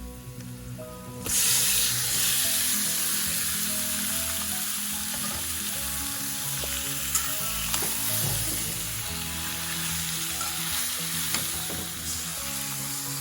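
Food going into hot oil starts sizzling sharply about a second in, then keeps frying with a steady hiss, broken by a few light clicks as it is stirred.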